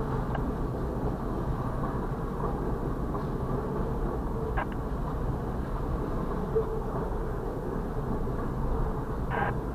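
Freight train of covered hopper cars rolling past at a grade crossing, heard from inside a stopped vehicle: a steady low rumble with two short clicks from the wheels, one midway and one near the end.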